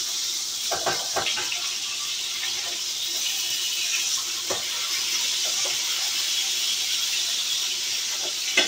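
Hamburger meat sizzling in a frying pan, a steady hiss, with a metal spatula scraping and tapping against the pan a few times.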